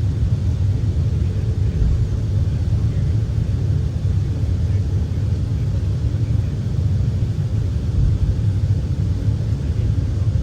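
Steady low rumble inside the passenger cabin of an Airbus A380.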